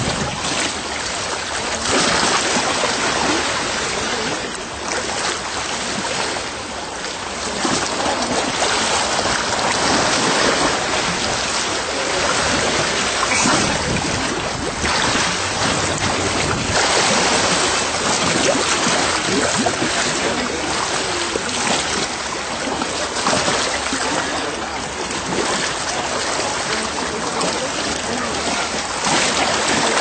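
Steady rushing of wind and sea water at the water's edge, swelling and easing every few seconds.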